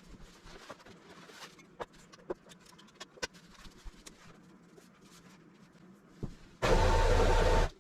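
Automatic wallpaper pasting machine's motor running in a short burst of about a second near the end, with a steady hum and whine, cutting off sharply; before it, light scattered clicks and taps.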